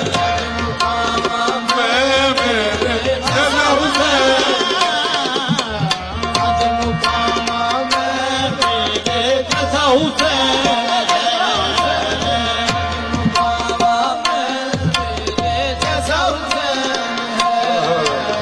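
Qawwali music: tabla playing a dense run of strokes under a wavering melody line.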